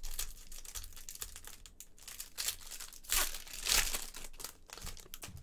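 Foil wrapper of a baseball trading-card pack crinkling and tearing as it is handled and opened by hand: a run of irregular rustles, loudest about three and four seconds in.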